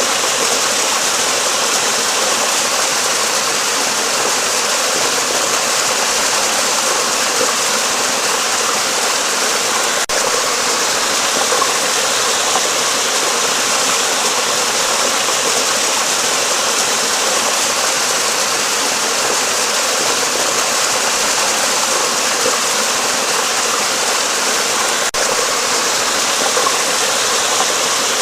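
Flowing water rushing steadily and evenly, as a stream running under a bridge.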